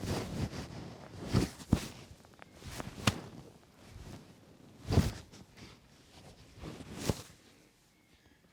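A barber's hands working a head massage, rubbing and striking the head and hair in irregular swishes and hits. There is a sharp click about three seconds in, and the loudest hit comes about five seconds in.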